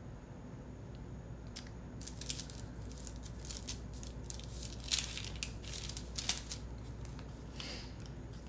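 Paper and sticker sheets rustling and crinkling as they are handled, a run of short crackles starting about two seconds in and thinning out near the end.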